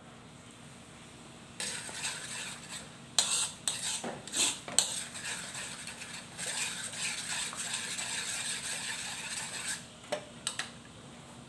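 A metal spoon stirring and scraping thick chilli sauce around a wok, starting about a second and a half in and stopping near the end. It knocks sharply against the pan several times early in the stirring and clinks twice more after it stops.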